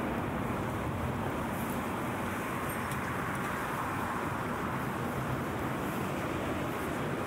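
Steady roar of city street traffic, an even wash of noise with no single vehicle or event standing out and a slight swell midway.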